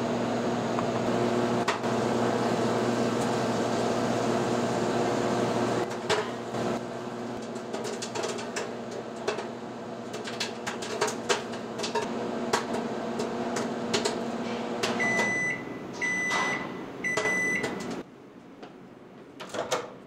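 LG microwave oven running with a steady hum, with scattered clicks and pops from about a third of the way in. Three long beeps then signal the end of the cooking cycle, the hum stops, and the door clicks open near the end.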